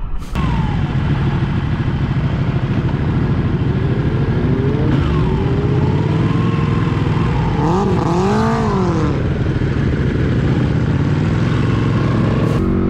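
Several motorcycles riding in a group, engines running with a steady drone. Several bikes rev up and back down about eight seconds in, their pitches rising and falling together.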